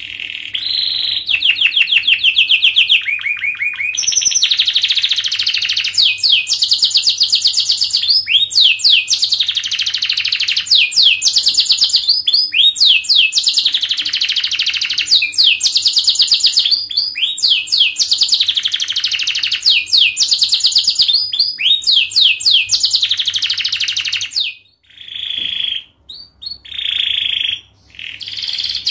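Domestic canary singing a long, fast song: tightly packed rapid trills alternating with quick sweeping notes, tour after tour, with a few brief breaks near the end.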